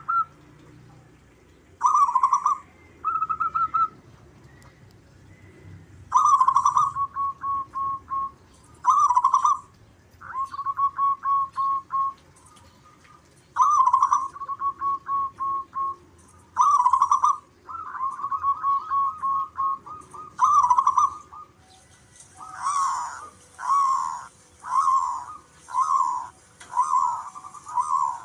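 Zebra dove (perkutut) song: repeated cooing phrases, each a louder opening note followed by a quick run of short, even staccato coos, with pauses between phrases. Near the end the phrases give way to a series of separate, more slurred notes about one a second.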